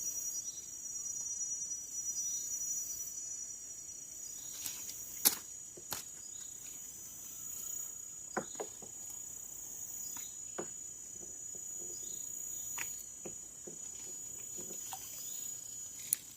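Insects chirring steadily in a high-pitched chorus, with a few sharp clicks and knocks scattered through it, the loudest about five seconds in.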